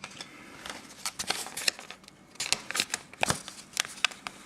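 Trading cards and plastic blister packaging being handled: a quick run of crackles and clicks.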